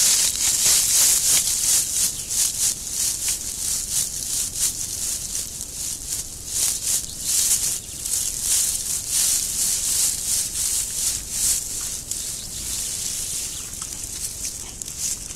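Several wild boars trampling through dead leaves and mud: continuous rustling and crackling made of many quick scuffs, busiest in the first half.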